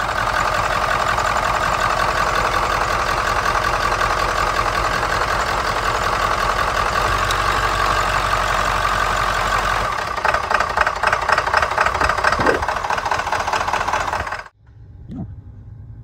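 7.3 L Power Stroke V8 turbodiesel running at a steady idle, turning choppier and more uneven about ten seconds in, then cutting off abruptly near the end. The engine has a shorted injector harness under its valve cover, the fault that makes the IDM kill a bank of injectors.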